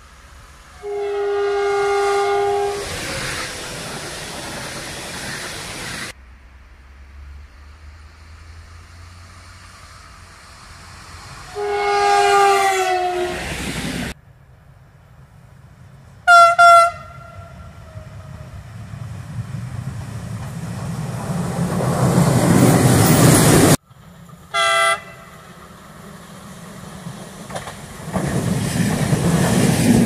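Croatian Railways (HŽ) train horns in a string of short clips: a held horn chord about a second in, another about twelve seconds in that drops slightly in pitch, and two short blasts around sixteen seconds, the loudest sound here. Then the rumble of a train grows as it approaches, a short horn blast comes near twenty-five seconds, and the train rolls past.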